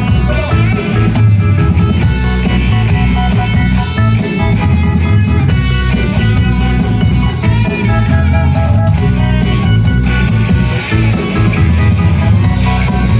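Rock band playing: electric guitar over strong bass and a drum kit, loud and continuous.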